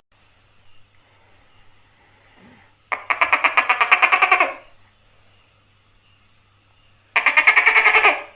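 Tokay gecko giving its rattling call: two bursts of rapid clucking pulses, about eight a second, the first about three seconds in and lasting over a second and a half, the second shorter near the end.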